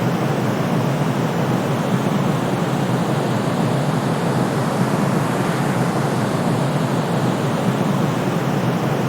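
Steady, unchanging white noise: an even hiss with a deep low end and no variation.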